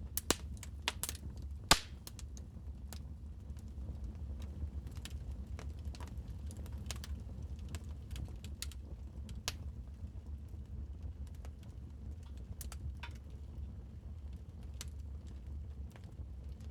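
Wood fire crackling in a fireplace: scattered sharp pops and snaps over a steady low rumble, with a cluster of louder pops in the first two seconds.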